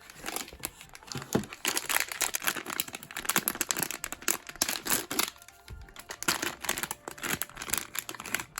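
Blind-box packaging being opened by hand: crinkling and rustling with some tearing, in irregular crackles, with a short pause a little past the middle.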